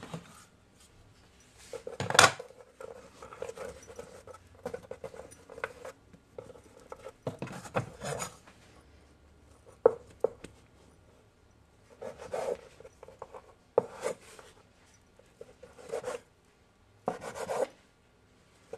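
A knife cutting through soft bread dough and scraping on a wooden board: short, separate scraping strokes about every couple of seconds, with one sharp knock about two seconds in.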